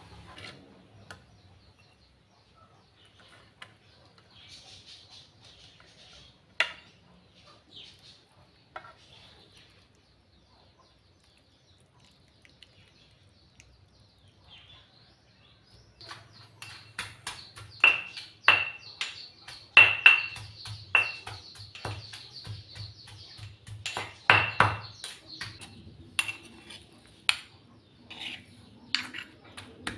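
Stone pestle pounding fish and curry paste in a stone mortar, with a metal spoon clinking in the bowl: a run of sharp knocks, many with a short metallic ring, starting about halfway through. Before that there are only a few faint clicks.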